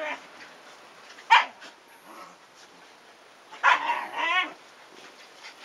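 Shiba Inu dogs vocalising in rough play: one short, sharp bark about a second in, then a run of higher, wavering yips a little after the middle.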